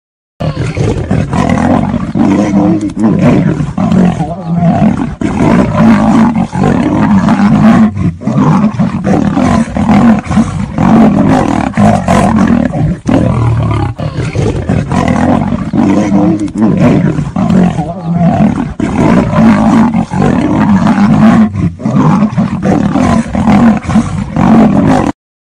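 A lion and a tiger fighting: continuous loud snarling and roaring with no pause, starting suddenly and cutting off abruptly near the end.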